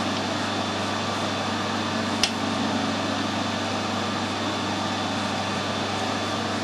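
Steady mechanical hum of a fan or motor in the workshop, with one sharp click about two seconds in while a 4 mm die is worked by hand onto a stainless rod in the lathe.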